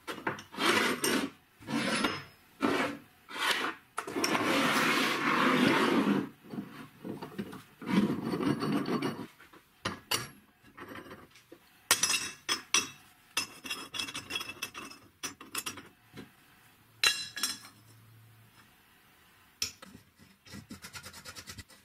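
Steel parts handled on a wooden workbench: a series of scrapes, clinks and knocks as bars, threaded rods and nuts are slid across the wood and fitted together, with one longer scrape about four seconds in.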